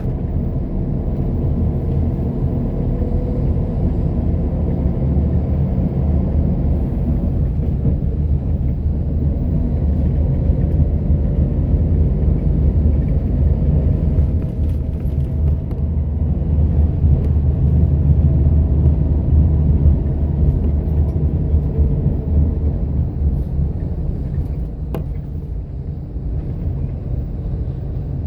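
Steady low rumble of a bus under way, engine and road noise as heard from inside the cabin, growing somewhat louder midway and easing a little near the end.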